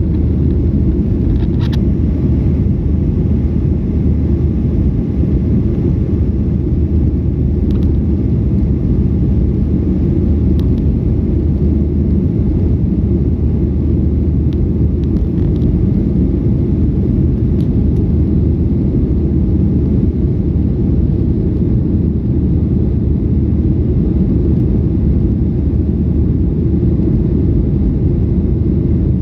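Airliner cabin noise during the climb after takeoff: a steady, loud low rumble of jet engines and airflow, with a few faint clicks.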